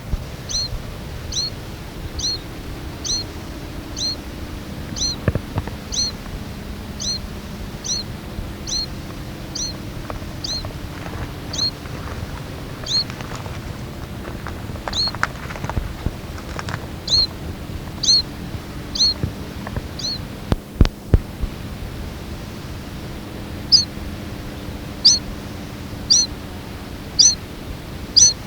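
Mourning Sierra Finch calling: a short, high, thin note repeated about every 0.7 s, pausing twice, with a few low thumps in the middle.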